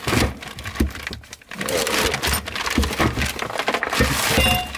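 Rummaging through a pile of boxed and plastic-wrapped car parts: cardboard and plastic bags rustling, with irregular knocks and thumps as a bagged brake rotor is pulled out.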